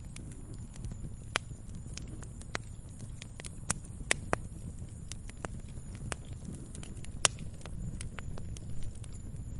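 Log fire crackling: irregular sharp pops and snaps over a low, steady rumble of the flames, the loudest pop about seven seconds in.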